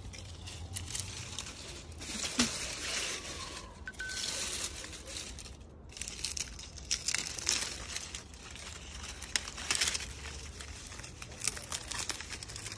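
Dry grapevine leaves rustling and crackling as a hand pushes through the vine, with scattered crisp crackles and a sharper click about two seconds in.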